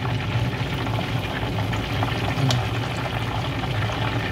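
Whole chicken deep-frying in a pot of hot oil, the oil bubbling and sizzling steadily, with a couple of faint clicks of metal tongs as the chicken is turned. A low steady hum runs underneath.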